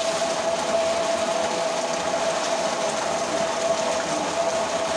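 Steady rush of a thick jet of water pouring from a pipe into a concrete tank, with a steady hum underneath and light splashing from children in the water.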